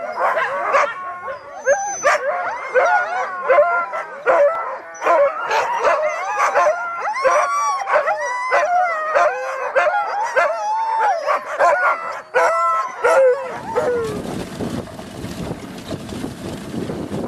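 A pack of harnessed sled dogs barking, howling and yipping all at once, the eager clamour of a team waiting to run. About three-quarters of the way through this gives way to wind rushing over the microphone as the sled moves along the trail.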